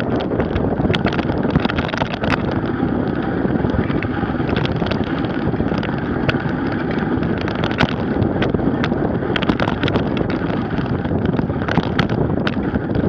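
Steady wind rumble on the microphone as a bicycle with a knobby tyre rolls over packed snow, with irregular sharp clicks and rattles.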